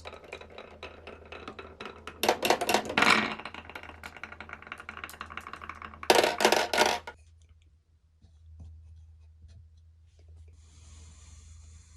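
Glass marbles rolling and clattering down a marble-run track, a fast run of small clicks with two louder rushes of many marbles about two and six seconds in. The sound dies away about seven seconds in.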